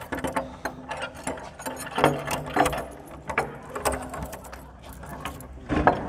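Old carved wooden door being unlatched and pushed open: a string of irregular metallic clicks, rattles and knocks from its lock and fittings, with a louder knock near the end.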